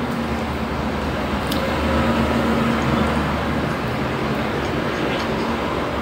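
Steady mechanical hum with a constant rushing noise behind it, and one faint click about one and a half seconds in.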